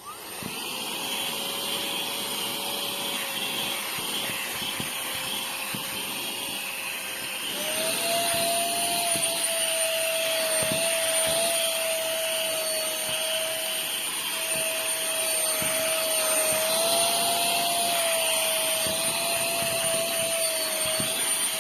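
Tiazhan handheld vacuum / air-duster's small high-speed motor switched on and running with a steady whine. About a third of the way through, the whine steps up in pitch and the sound gets louder.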